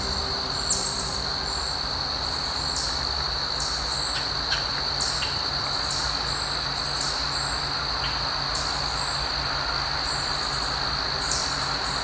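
An outdoor insect chorus trilling in one continuous high steady note. Short, sharp, very high chirps come about once a second, with a low rumble underneath.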